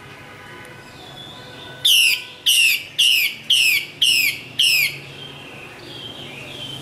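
Female Chinese hwamei calling: a run of six loud notes, each slurring sharply downward, about two a second, with softer calls just before and after.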